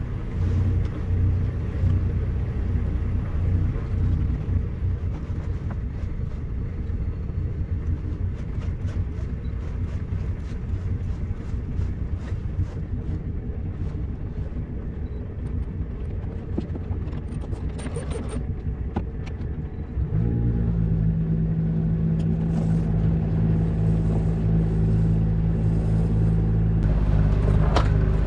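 Rough low rumble with scattered crackles for about twenty seconds, then an abrupt change to the sailboat's engine running with a steady low hum.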